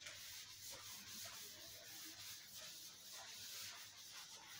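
A chalkboard duster rubbing across a blackboard, wiping off chalk writing: a faint, steady rubbing.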